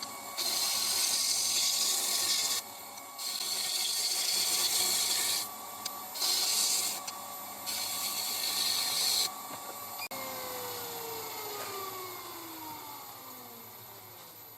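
Wood lathe motor running with a steady whine while a tool is worked against the spinning holly blank in four hissing passes, each lasting one to two seconds. About ten seconds in, the lathe is switched off and its whine falls in pitch as it winds down.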